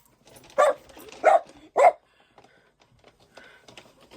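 A dog barking three times in the first two seconds, short, loud barks a little over half a second apart, followed by fainter scattered sounds.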